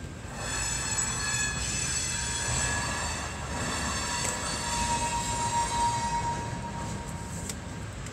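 A high-pitched squeal with several overtones over a low rumble for about three seconds, then a single lower steady tone for a few seconds.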